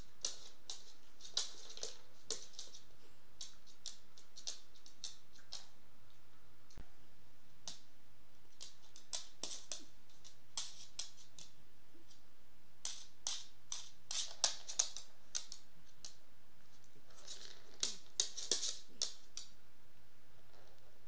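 A small dog's claws clicking and tapping on a wood floor as it turns and steps about, in irregular runs of quick clicks with pauses between.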